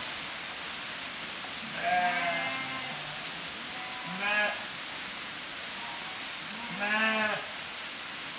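Sheep in a moving flock bleating, three separate calls about two to three seconds apart, over a steady background hiss.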